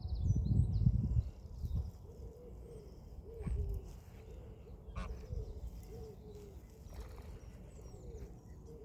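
Greylag geese giving a run of short, soft, low calls, repeated about every half second. A low rumble fills the first second or so, and small birds chirp faintly in the background.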